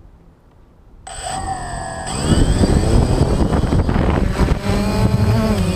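Small multirotor drone's electric motors start with a whine about a second in, then its propellers spin up loud and it lifts off, the motor pitch shifting up and down as it climbs.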